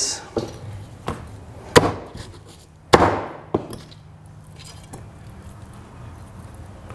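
About five sharp knocks and clacks of a cleaver and cut pieces of fried chicken on a wooden chopping block and a glass dish. The loudest knock comes about three seconds in, with a short ring after it.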